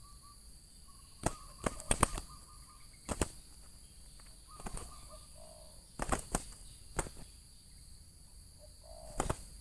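Spotted dove cooing in short repeated phrases, with sharp knocks scattered through, the loudest in a cluster about two seconds in and again around six to seven seconds. A steady high insect drone runs underneath.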